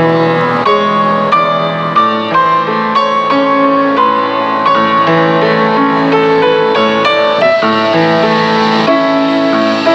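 Instrumental background music, a melody of held notes that changes about every half second.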